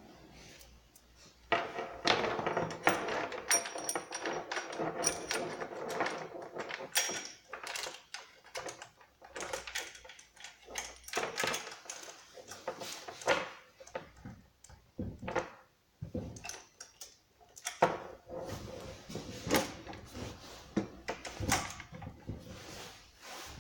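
Handling noises from unboxing and assembling a Husqvarna 455 Rancher chainsaw: irregular clicks, knocks and rustling of parts and packaging, busiest from a couple of seconds in to about seven seconds, then scattered sharper knocks.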